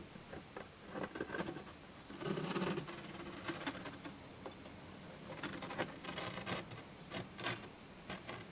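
Cardboard door of a small box house being worked with a key and pulled open: irregular clicks and scrapes, with a louder rustle a little over two seconds in.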